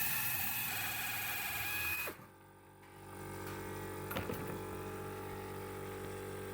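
Pneumatic air shears running and cutting the sheet-metal front panel of a washing machine, a loud hissing buzz that stops suddenly about two seconds in. After a short lull a steadier machine hum takes over, with a single click partway through.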